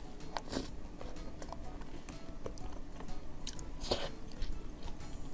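Close-miked eating of soft, creamy lava cake: chewing and wet mouth sounds, with scattered sharp clicks. The loudest scrape, a few seconds in, comes as the spoon scoops into the cake. Faint background music underneath.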